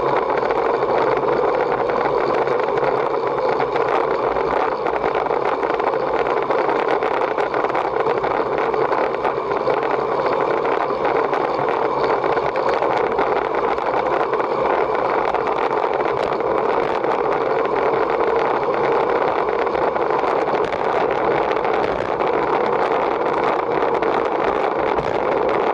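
Steady rush of wind and road-bike tyre noise while riding at race speed, unchanging throughout.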